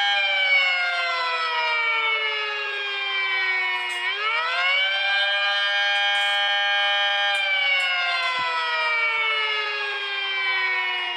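5/2-port 'Filipino screamer' rotor siren winding down in pitch, then spinning back up sharply about four seconds in. It holds its top pitch for about three seconds, then winds down again.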